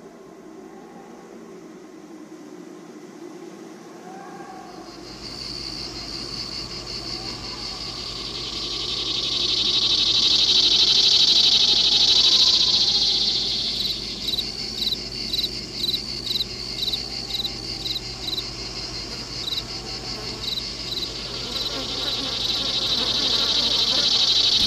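High, shrill insect-like chirring that swells to its loudest about halfway through, then pulses in regular chirps about twice a second, over a low steady hum.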